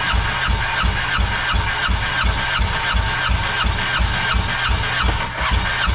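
Yamaha jet boat's four-cylinder engine being cranked over by its electric starter without firing (ignition coils and spark plugs out) for a compression test, with a steady chugging about four times a second.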